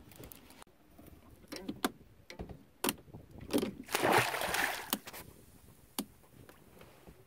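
A thornback ray thrashing at the surface beside a boat: a loud splash and churn of water about four seconds in that lasts about a second. Scattered sharp knocks and clicks come before it, with one more near the end.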